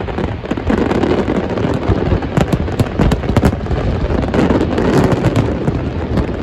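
Aerial fireworks going off in quick succession: many overlapping bangs and crackles over a constant loud rumble.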